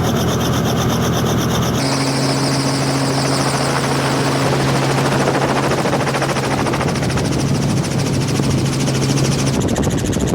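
Helicopter running: a fast, steady rotor chop over a steady engine drone. The sound changes abruptly about two seconds in and again near the end.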